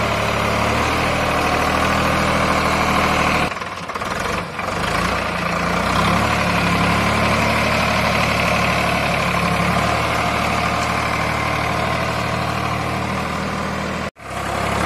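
VST Shakti 9045 DI tractor's diesel engine running steadily while it pulls a tine cultivator through tilled soil. The sound briefly drops about four seconds in and cuts out sharply near the end.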